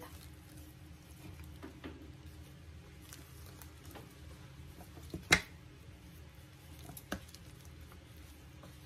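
Soft, quiet squishing and rustling of gloved hands spreading and rolling a cooked cabbage leaf around its filling on a plate, with one sharp click about five seconds in and a smaller one about two seconds later.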